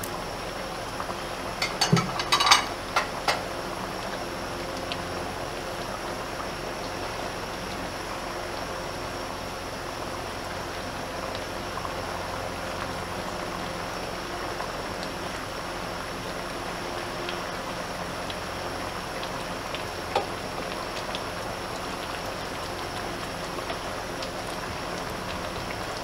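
Chicken curry boiling in a pot on a gas stove: a steady bubbling hiss. A few sharp knocks and clicks come about two to three seconds in.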